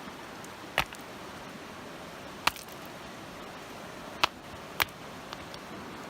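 Sharp, short knocks or cracks, four loud ones and a faint one about a second or two apart, from hand work making primitive fire-making tools, over a steady background hiss.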